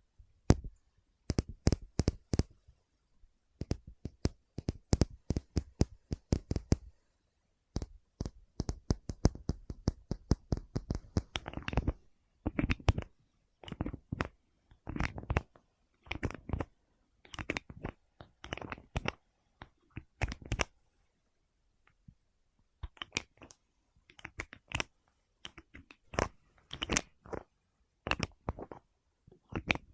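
Fingers tapping and knocking on objects in quick runs of sharp taps, several a second, with short pauses between runs and some scratching.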